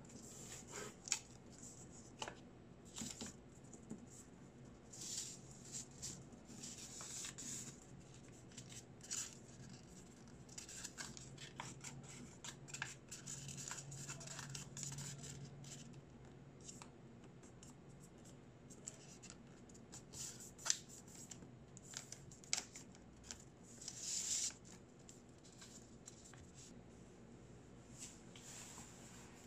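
Origami paper being folded and creased by hand, sliding on a cutting mat: irregular crisp rustles and scrapes of paper, some sharper than others.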